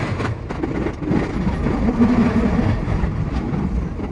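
Running noise of a JR East E233 series 0-numbers electric multiple unit heard from the driver's cab: a steady rumble with a few sharp wheel clicks over the rails.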